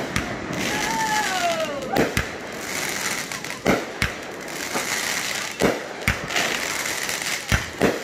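Fireworks shots launching and bursting in the air, with sharp bangs about every two seconds, often two close together, over a steady crackling fizz from the bursting stars.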